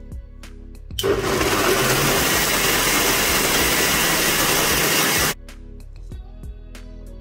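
Electric food processor blending a chicken liver pâté mixture. The motor starts about a second in, runs at a steady speed for about four seconds, then stops abruptly. Light background music plays under it.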